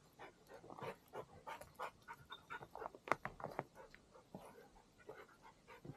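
A bird dog panting in quick, irregular breaths.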